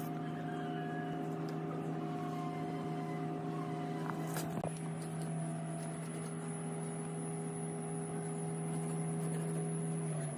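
A machine motor running steadily with a humming tone, with a brief click about halfway through; it cuts off abruptly at the end.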